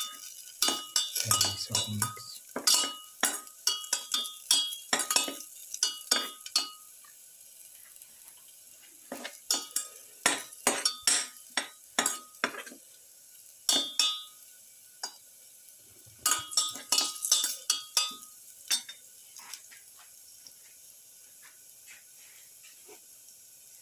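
Perforated spatula stirring garlic in a metal pan, a quick run of clinks and scrapes with the pan ringing briefly after each. It comes in three spells with short pauses between, then only a few faint taps near the end.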